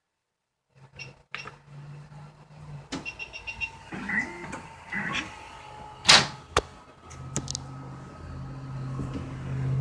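da Vinci 3D printer starting a print job: a low motor hum with scattered clicks, a sharp click about six seconds in, then a steadier, stronger hum near the end.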